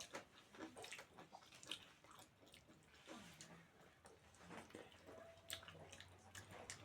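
Faint chewing and mouth sounds of people eating: a scatter of small, wet clicks and smacks at irregular intervals.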